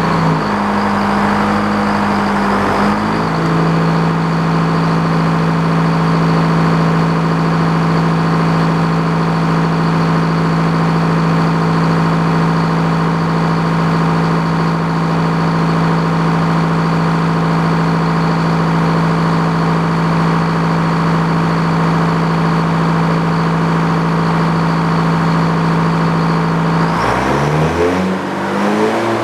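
Frick circular sawmill running through a cut, a loud steady machine hum with a high whine above it. The pitch settles a little lower about three seconds in and slides down near the end.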